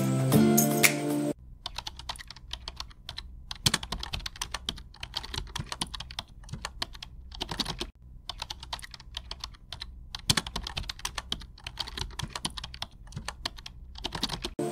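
Background music for about the first second, then computer keyboard typing: quick clicking keystrokes in short runs with brief pauses, continuing until the music comes back at the very end.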